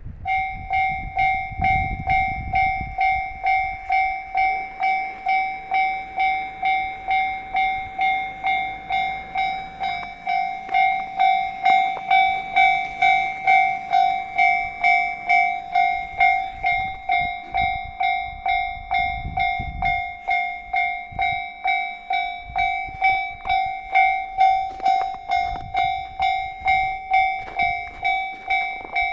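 Japanese railway level crossing warning bell starts ringing and keeps going: a steady, even two-tone electronic clang, just under two strikes a second. It signals that a train is approaching the crossing.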